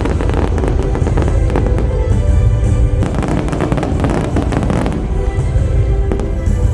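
Fireworks display: a dense, continuous run of shell bursts and crackling, with a heavy low rumble, over the show's music soundtrack.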